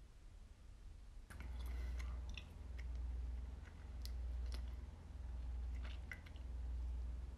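A low throbbing pulse that starts about a second in and swells and fades roughly once every second and a bit, with scattered small clicks and ticks over it.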